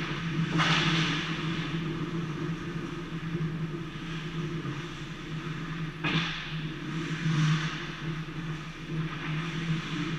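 Indoor ice rink during a hockey game: a steady low mechanical hum, with the hissing scrape of skate blades on the ice rising and fading three times, about half a second in, about six seconds in, and again soon after.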